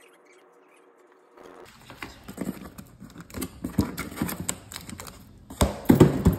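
Cardboard parcels being handled: irregular knocks, scuffs and rubbing against the handheld phone, starting about a second and a half in and loudest near the end.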